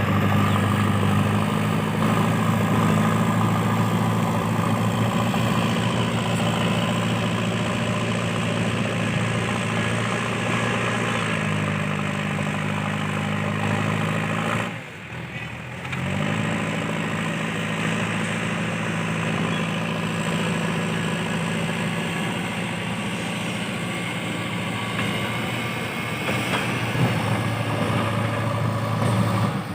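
JCB 3DX backhoe loader's diesel engine running steadily at working revs, its pitch easing down a little about a third of the way in, with a brief break about halfway before it runs on.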